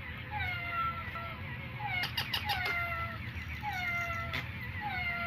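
Repeated meowing: a series of short cat meows, each falling in pitch. A few sharp knocks sound around the middle and once near the end.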